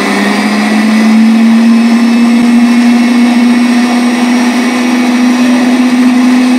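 Twin-motor 25,000 lb electric winch (two 6.8 hp motors through a 212:1 geartrain, on 24 V) reeling in its rope with no load, a loud, steady motor-and-gear whine. Its pitch steps up slightly right at the start as it comes to full speed, then holds steady.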